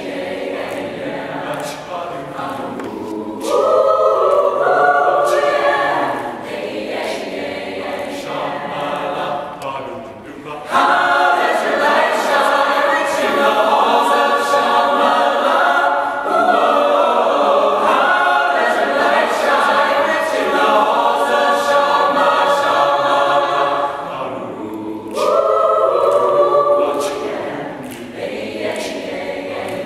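High school mixed-voice choir singing a cappella in chordal harmony. It swells loud a few seconds in, drops back, then holds a long loud passage from about 11 s, with one more loud swell after a brief softening, and eases near the end.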